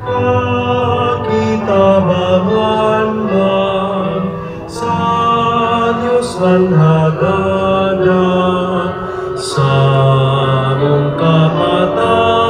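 Background music: a slow song with long held sung notes over a sustained low accompaniment.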